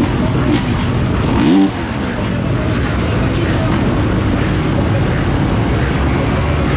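Motocross bike engines running at the start gate, a steady dense engine noise. About a second and a half in, one engine revs up sharply and is cut off.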